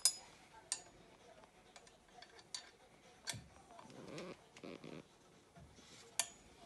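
Sharp metallic clicks and knocks, about five spread out, the loudest right at the start, as a stunt scooter's steel handlebar and clamp are handled and fitted together during assembly, with some softer rubbing in between.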